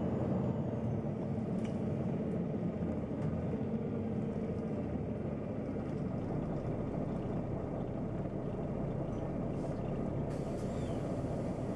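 Neoplan N 4416 Centroliner city bus driving at a steady pace, its engine running with a continuous low rumble, heard from inside the passenger cabin.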